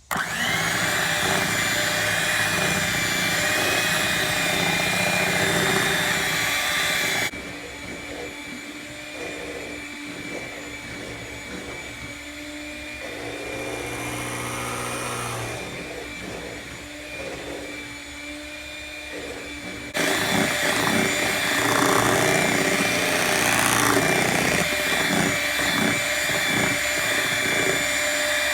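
Electric mixer motor whining steadily as it beats pumpkin bread batter. It runs loud, drops to a quieter, lower setting about seven seconds in, and comes back up to full about twenty seconds in.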